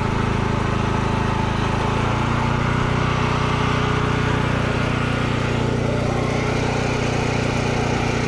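Portable generator engine running steadily, its note shifting slightly about two seconds in.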